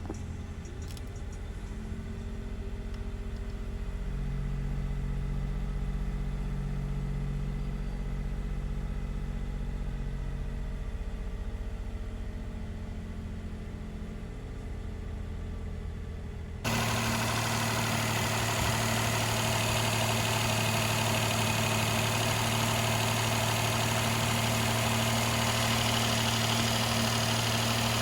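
Daihatsu Move Conte's three-cylinder 660 cc engine idling steadily on freshly replaced spark plugs. A little over halfway through, the sound jumps suddenly louder and carries on as the same steady idle.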